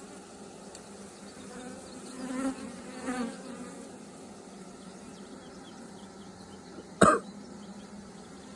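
Honeybees humming steadily around an open hive, swelling louder twice about two and three seconds in. A sharp knock about seven seconds in is the loudest sound.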